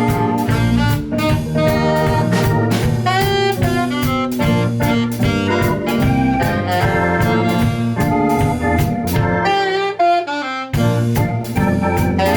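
A jazz band playing, with a saxophone carrying the melody over a drum kit and bass. About ten seconds in, the bass and drums drop out for a short break, then the full band comes back in.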